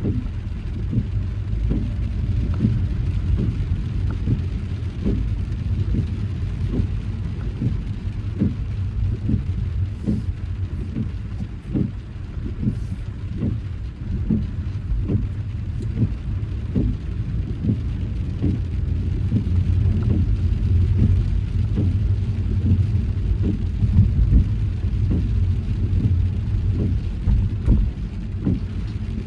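A car driving in rain: a steady low rumble of the car on the road, with frequent irregular taps of raindrops.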